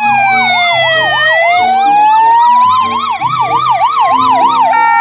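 Ambulance siren: a slow wail falling and rising with a fast yelp warbling over it, changing to a two-tone hi-lo pattern near the end.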